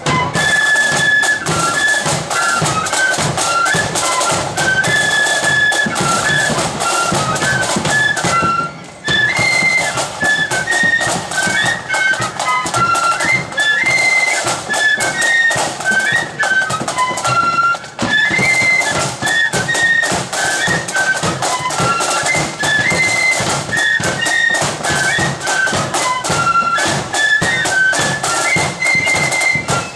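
Marching flute band playing a brisk tune in unison on flutes over beating drums, with a short break in the music about nine seconds in.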